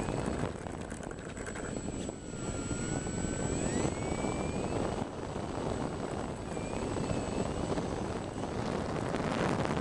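RC model airplane flying overhead, its motor whine gliding up and down in pitch over a steady rushing noise.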